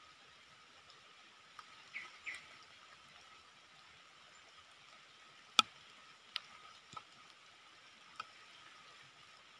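Faint outdoor background with a steady thin insect hum. Two short soft chirps come about two seconds in, then a few sharp clicks, the loudest about halfway through.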